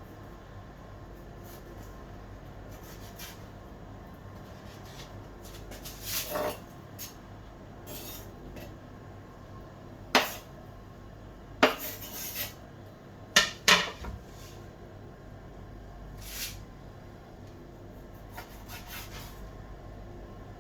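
A handful of separate sharp knocks and clinks of hard objects, the loudest three in the middle stretch, over a steady faint hiss.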